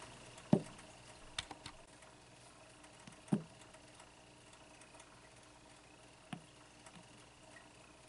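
A few soft, separate taps and clicks from handling a nail polish bottle, its brush and a makeup sponge, over quiet room tone with a faint steady high tone.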